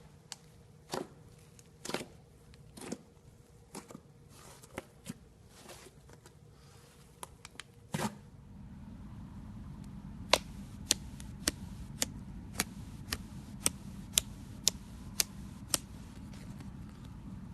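Fluffy slime being pressed and poked, giving short sharp pops and clicks, scattered at first. After about eight seconds a low steady background comes in, and the pops become a regular run of about two a second.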